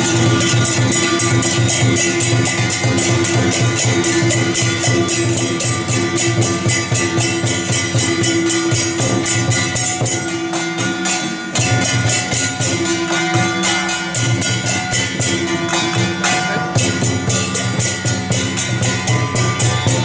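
Temple-procession percussion: hand gongs and cymbals beaten in a fast, even beat of about five strokes a second, over steady gong ringing. The low ringing drops out for about a second and a half near the middle.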